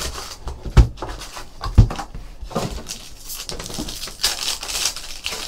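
Cardboard card box being handled and opened, with two dull thumps about one and two seconds in, then a foil pack of Upper Deck Ice hockey cards torn open and crinkling.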